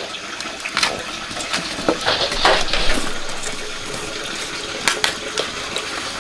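Water splashing and pouring, with a few sharp clinks; the splashing is loudest about two to three seconds in.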